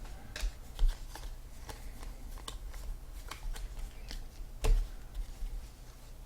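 Trading cards handled and sorted by hand: a string of light clicks and flicks. Two louder knocks come through, one about a second in and one about a second and a half before the end.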